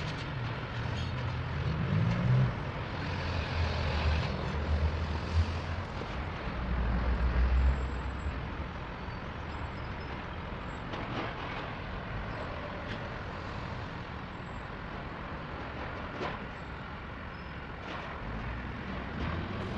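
Double-stack intermodal freight train rolling slowly past on jointed yard track, its cars and wheels making a low rumble that is strongest for the first several seconds and then settles to a quieter steady noise as the train moves away.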